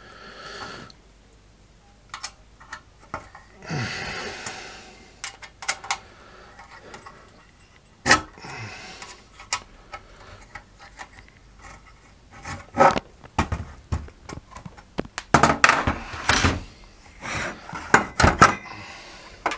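Scattered metal clicks, knocks and scrapes from a perforated aluminium chassis plate and a metal-cased switch-mode power supply being handled and moved on a workbench, with several sharper knocks in the second half.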